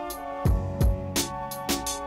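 Background music: an instrumental beat with deep kick drums that drop in pitch, sharp drum hits on a steady rhythm, and sustained chords underneath.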